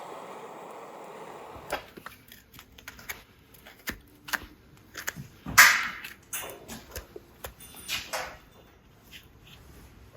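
Farrier working on a horse's hoof: a steady scraping for the first second and a half, then irregular clicks, knocks and short scrapes of tools on hoof. The loudest is a scrape about halfway through.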